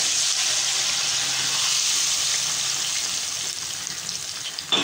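Yogurt-marinated chicken poured into hot ghee in a pan, setting off a loud, steady sizzle that slowly dies down. A short knock just before the end.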